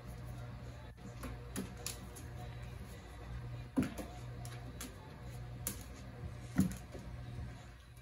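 Scattered light taps and clicks of paws scrabbling on a hollow plastic toy slide as puppies and a cat tussle, with two louder thumps, one about halfway through and another a few seconds later, over a steady low hum.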